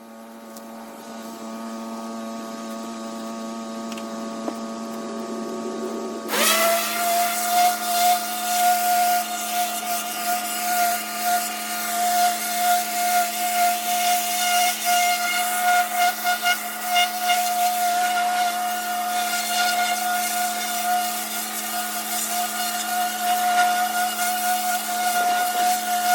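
Pressure washer running with a steady machine note; about six seconds in the high-pressure water jet starts with a sudden loud hiss, blasting the brick paving, and its loudness surges up and down as the spray is swept across the bricks.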